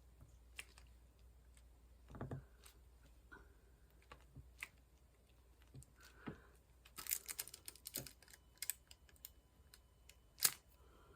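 Light, irregular clicks and taps of diamond painting: square resin drills being placed with a drill pen. There is a quick run of clicks about seven seconds in and a sharper tap near the end.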